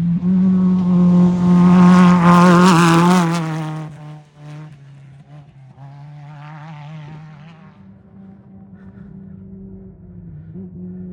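An off-road race vehicle's engine passes close at speed, its pitch wavering up and down as the throttle works, loudest about two to three seconds in and then fading away. A second, fainter race vehicle goes by about six seconds in, over a steady low hum.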